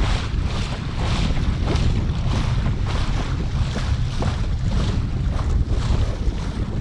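Water rushing and splashing along the hull of a Laser Pico sailing dinghy under way, surging in a splash every half second or so as the bow meets small waves. Heavy wind rumble on the microphone underneath.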